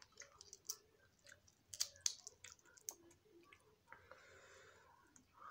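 Snow crab shell cracking and clicking as the legs are broken apart and the meat picked out by hand, with soft chewing between the cracks.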